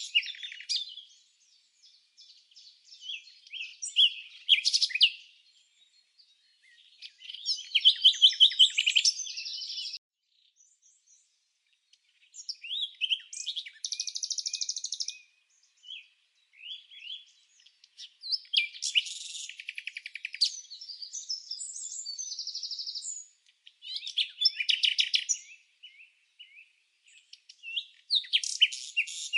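Birds singing: phrases of rapid, high chirps and trills, each lasting one to three seconds, with short silent gaps between them.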